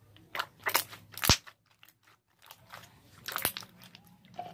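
Slime being stretched and squeezed by hand, giving short crackling pops as air pockets burst: a cluster in the first second and a half with the sharpest pop just after one second, then another cluster around three and a half seconds.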